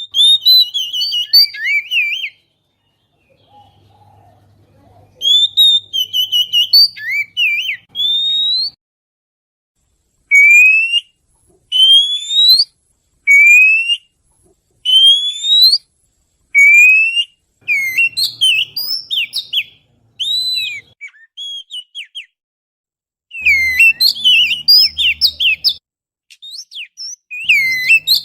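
Oriental magpie-robin (kacer) singing: phrases of clear whistled notes with varied trills, including a run of six rising whistles about a second and a half apart in the middle, with silent breaks between phrases.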